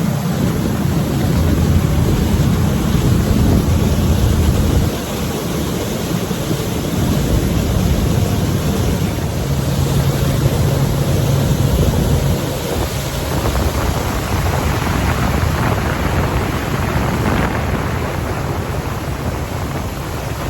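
Wind rumbling and buffeting on the microphone by open water, with a steady low hum underneath that eases off a little about five seconds in.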